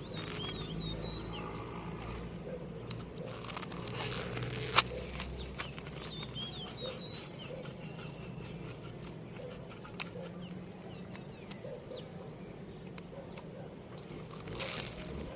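A person chewing and crunching mont lay pway, a Burmese snack. Small bird chirps come in briefly near the start and again midway, and there is a single sharp click about five seconds in.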